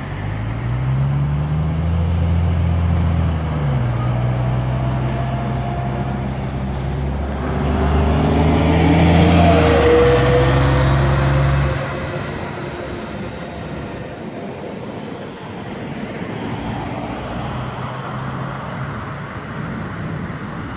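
Diesel city bus pulling away, its engine rising in pitch and then dropping twice as the automatic transmission shifts up. It fades out after about twelve seconds, leaving steady street traffic noise.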